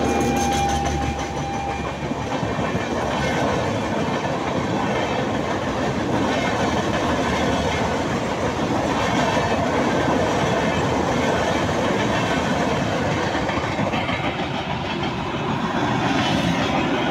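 LHB passenger coaches of an Indian Railways express train rolling past on the track: a steady, loud wheel-on-rail noise. A held horn note ends about a second in.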